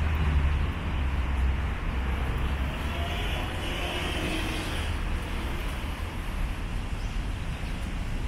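City road traffic: a low engine rumble from passing vehicles, strongest in the first few seconds and then easing, with a brief higher hiss about three to five seconds in.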